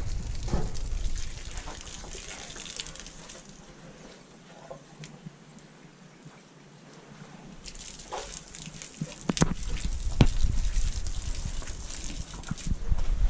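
Water gushing and splashing from a garden hose held to a bull elephant's trunk as it drinks. The splashing eases off in the middle and builds again, with a low rumble and a few sharp knocks in the second half.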